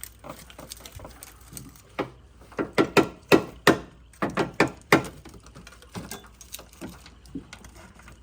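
A quick run of loud knocks, about ten in under three seconds, starting about two and a half seconds in, with fainter taps before and after.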